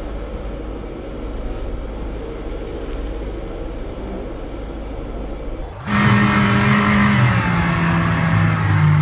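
Motorboat running at speed, its engine with wind and rushing water in a steady rumbling din. About six seconds in, the sound cuts abruptly to a louder, fuller track of low held tones that step down in pitch.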